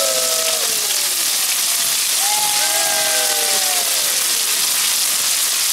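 Several voices calling out together in long, falling cries, twice, over a steady hiss of noise.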